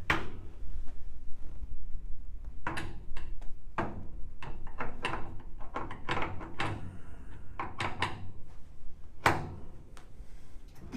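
Irregular run of sharp knocks and clunks from a patient being positioned and worked on a chiropractic treatment table. A dozen or more come close together in the middle, with a strong one near the end.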